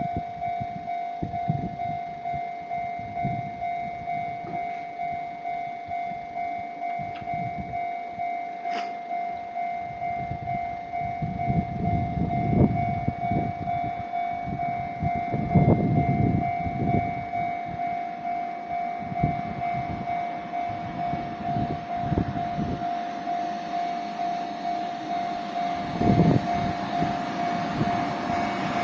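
Japanese level crossing warning alarm ringing its electronic 'kan-kan' tone, about one and a half rings a second, without a break. Low rumbles come and go beneath it, and near the end a rising rush of noise marks an approaching train.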